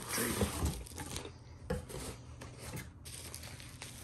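Cardboard and plastic packaging being handled: uneven rustling and rubbing with a few light knocks, busiest in the first second.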